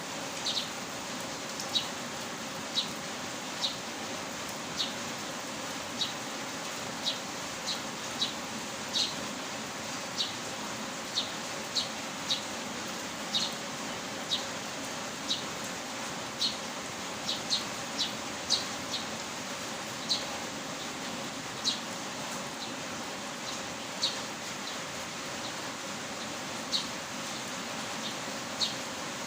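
Steady hiss of heavy rain, with short, sharp high-pitched ticks scattered through it at irregular intervals, roughly one a second.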